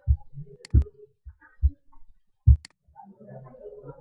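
Computer mouse clicking and knocking on the desk: about five short low thumps with two sharp clicks among them.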